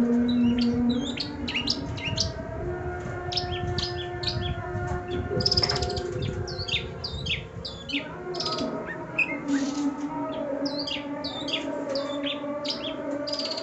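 Long-tailed shrike singing a rapid, varied song of sharp chirps and whistling notes, one call after another without pause. Underneath runs a low, steady drone whose pitch shifts every few seconds.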